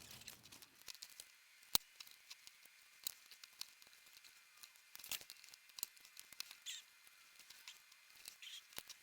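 Hand-stitching nylon webbing: faint, irregular clicks and rustles as the needle and thread are worked through the stiff strap, with one sharper click a little under two seconds in.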